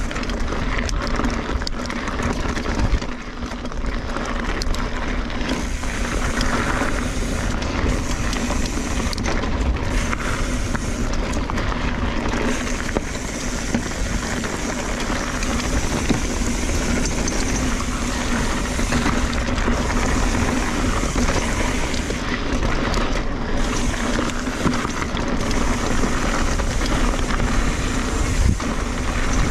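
2017 Kona Honzo hardtail mountain bike ridden hard on a dirt and gravel singletrack: steady wind rush buffeting a chest-mounted camera microphone, over the rolling crunch of the tyres and the rattle of the bike.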